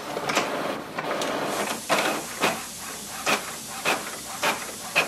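HP OfficeJet Pro 9135e inkjet all-in-one running a copy job: the mechanism whirs, broken by a short swish or click roughly every half second as the paper feeds and the print carriage moves.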